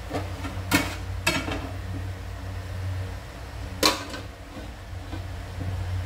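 Metal lid being set on an aluminium cooking pot on a gas stove: two light clinks about a second in, then a sharper clink near four seconds as the lid meets the rim. A steady low hum runs underneath.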